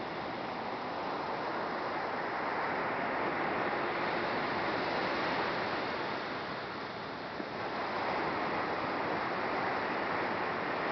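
Ocean surf breaking and washing up a sandy beach: a steady rush of waves that eases a little past the middle and swells again.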